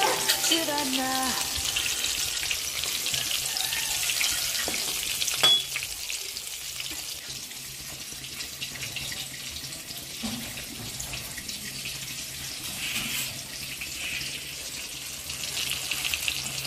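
Oil sizzling in a cast-iron kadai as coated pieces shallow-fry, a steady crackling hiss. A single sharp clink sounds about five and a half seconds in.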